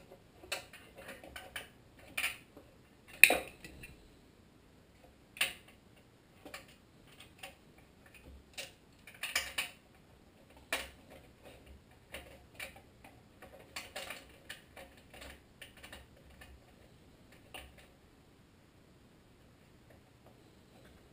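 Irregular small metallic clicks and clinks as bolts are threaded by hand into the sheet-metal shroud of a Tecumseh HM80 small engine, the shroud ticking against the engine. The sharpest click comes about three seconds in, and the last few seconds are nearly quiet.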